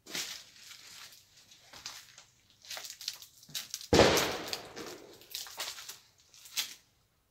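Footsteps crunching and scuffing over debris on the floor of a derelict railway carriage, with a loud thump about four seconds in.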